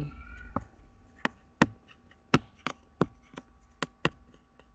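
About a dozen sharp, irregular clicks from the pen input, roughly one per stroke, as handwritten letters are drawn on a digital whiteboard.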